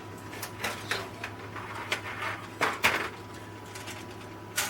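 Plastic model kit parts being handled and shuffled: light clicks, taps and rustles, with a few sharper clacks in the middle and near the end, over a faint steady hum.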